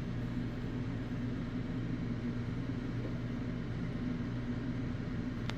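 Steady low mechanical hum, with a few constant low tones over an even noise, and one short click near the end.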